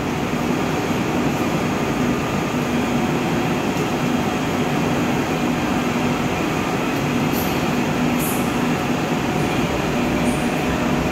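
Seoul Subway Line 3 electric train standing at the platform with its doors open, its onboard equipment giving a steady whirring hum with a low tone that comes and goes.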